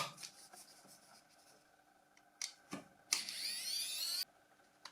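Small plastic clicks from a mobile phone being taken apart. Then, about three seconds in, a high-pitched whir lasts roughly a second, rising in pitch, and cuts off suddenly.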